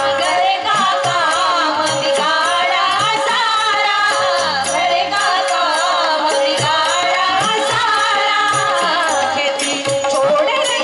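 A woman singing a devotional bhajan, her melody gliding and ornamented, over a steady held drone note and percussion striking in an even rhythm.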